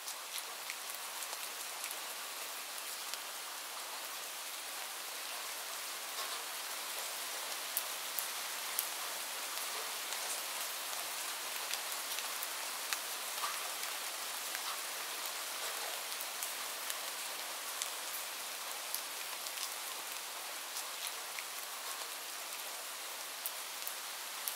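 Steady rain falling into a puddle: a constant even hiss dotted with many sharp little ticks of single drops striking the water.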